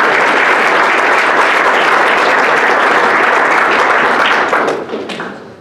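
Audience applauding, a dense wash of clapping that dies away near the end.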